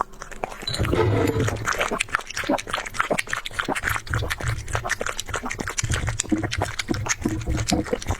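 A pet eating rice, with many rapid wet chewing and lapping clicks, and a low growl setting in about a second in and coming and going.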